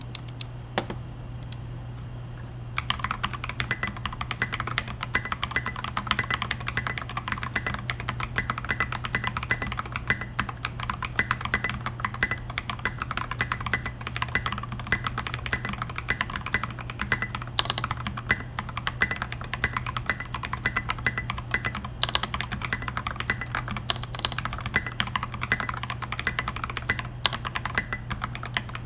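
Typing on a LowKey Keyboards Squirtle Squad TKL mechanical keyboard with a brass plate, Naevy switches and SA-profile keycaps. The keystrokes come in a rapid, continuous run that starts about three seconds in.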